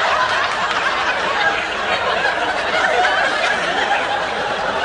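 Studio audience laughing, a steady sustained wave of laughter.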